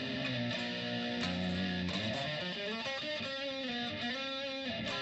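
Electric guitar played through moderate distortion with the flanger pedal still off: the dry, "fairly distorted, but not overly" base tone, sustained chords and notes, with some notes bent a little after halfway.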